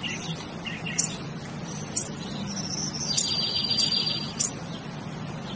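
Birds chirping in short calls about once a second, with a buzzing trill for about a second near the middle.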